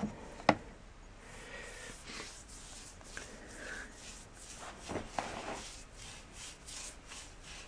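Wet paintbrush scrubbing rust treatment onto rusty steel frame rails, a soft repeated rubbing with each stroke, denser in the second half. A single sharp click about half a second in.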